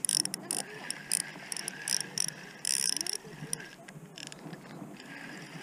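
Small spinning reel's mechanism clicking and buzzing in irregular bursts as it is worked by hand, busiest in the first three seconds or so.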